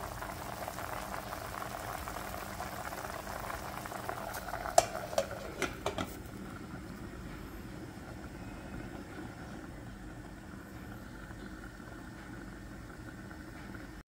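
Pot of red snapper in tamarind water boiling, a steady bubbling. About five seconds in, a glass lid clinks onto the pot in a few sharp knocks, after which the boiling goes on quieter and muffled under the lid.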